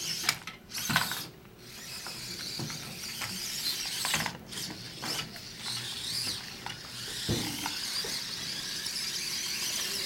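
BlueBird hobby servos driving a small robot's wheels: a steady, high-pitched gear whine that wavers in pitch as the robot moves and climbs a ramp. A few sharp clicks come in the first second or so.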